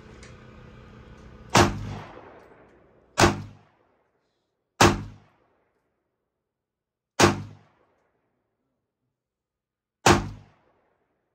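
Five single gunshots from a Micro Draco pistol, fired at uneven intervals of about one and a half to three seconds, each with a short echoing tail. A low steady hum runs underneath up to the first shot.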